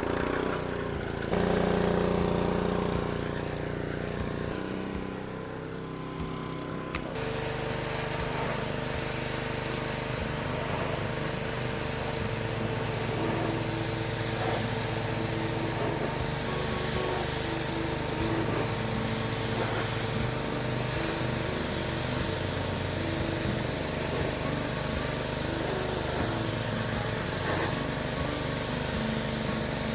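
Gas pressure washer's small Honda engine running steadily, with the hiss of the wand's wide fan spray hitting patio-chair sling fabric. The sound changes abruptly about seven seconds in.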